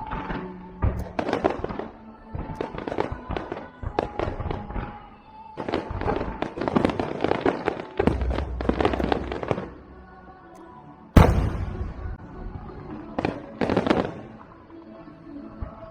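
Aerial fireworks shells bursting in rapid crackling volleys, with one much louder boom about eleven seconds in. Music plays underneath.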